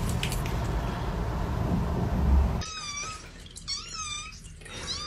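Steady background noise, then from about two and a half seconds in a kitten mewing: several short, high-pitched calls that rise and fall, in quick groups.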